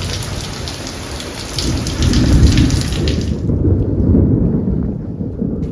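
Rain falling steadily, with a heavy low rumble underneath. The hiss of the rain drops away suddenly about three and a half seconds in, while the rumble carries on.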